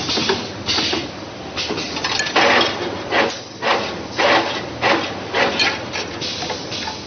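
XLC 2D CNC wire bending and welding machine running its hexagon-forming cycle: pneumatic cylinders actuate and wire is fed and bent. This gives a repeating series of rushing, clattering surges, about one every half second to a second, with a few sharp clicks.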